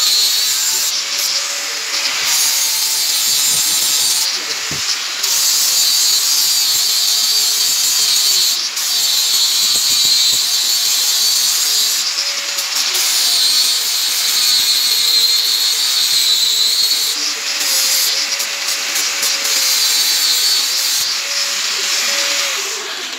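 Angle grinder grinding rust off the steel of an old axe head: a steady high whine with a hissing grinding noise that eases off briefly several times as the disc comes off the metal.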